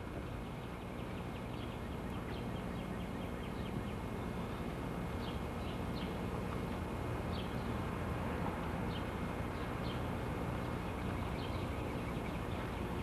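Faint birdsong, scattered short high chirps, over a steady background hiss and low hum.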